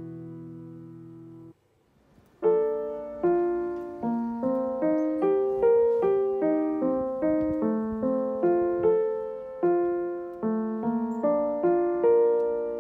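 Solo piano music. A held chord fades out, there is a short pause, and then a gentle melody of struck notes resumes about two seconds in, at a slow, even pace.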